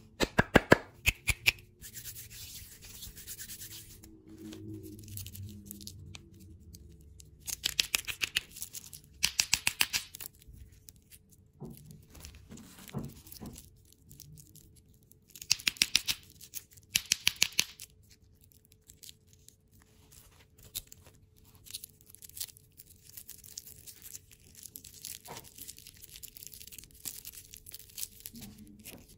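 Plastic lollipop wrappers crinkling and rustling as wrapped Chupa Chups lollipops are handled and rubbed between the fingers. Several bursts of rapid crackling stand out, each about a second long.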